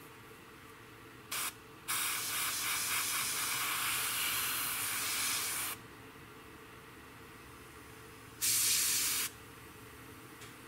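Airbrush spraying paint in three hissing bursts: a brief one about a second in, a long one of about four seconds, and a short one near the end. It is laying a mottled camouflage pattern through a stencil onto a model aircraft wing.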